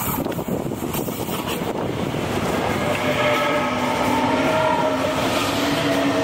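A train passing close by on the near track, its wheels rolling over the rails, while a diesel freight locomotive hauling container wagons approaches on another track. From about three seconds in, the sound grows louder and several steady whining tones run over the rumble.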